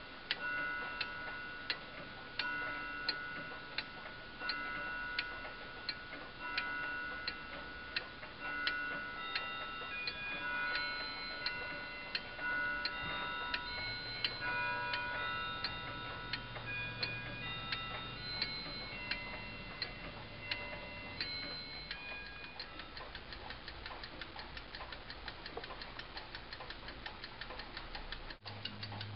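Time-only movement of a Hansen Mfg. Co. oak wall clock ticking with evenly spaced ticks, each followed by a ringing tone. About three-quarters of the way through, the ticks turn into a fast rattle: the escapement is running free with the pendulum off.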